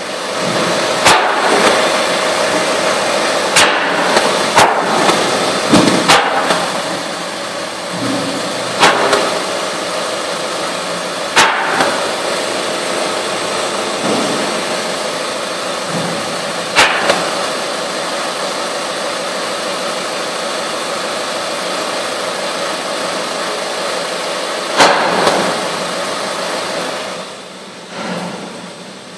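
Car elevator running: a steady mechanical hum with a faint steady tone, broken by sharp knocks and clunks every few seconds. The hum drops away about two seconds before the end.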